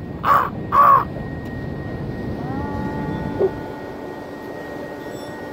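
A bird gives two short, loud calls about half a second apart, over the steady wash of ocean surf. From about halfway through, a faint tone rises and then holds steady.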